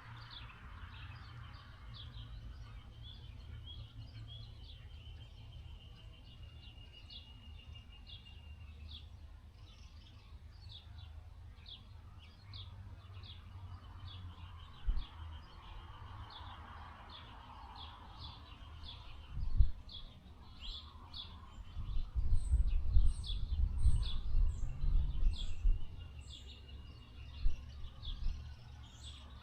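Small birds chirping over and over in short high notes, with a thin trill held at times. Wind buffets the microphone with a low rumble that gusts loudly near the end.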